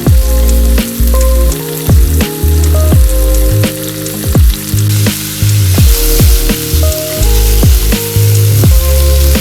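Food sizzling and crackling in a frying pan over background music with a steady beat of deep, falling bass kicks and held bass notes.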